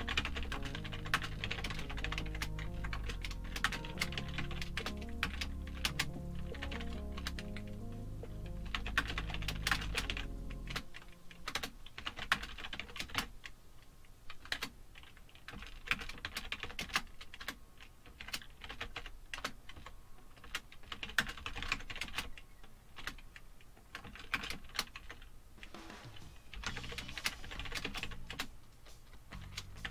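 Typing on a computer keyboard: quick, irregular key clicks in runs and pauses. Background music with low bass notes plays under the typing and stops about a third of the way through.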